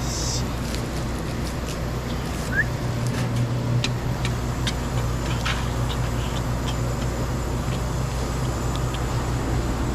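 Car driving: a steady low drone of engine and road noise, with scattered light clicks over it.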